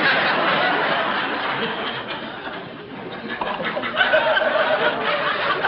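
Studio audience laughing: a big swell of laughter that eases off about halfway through, then rises again.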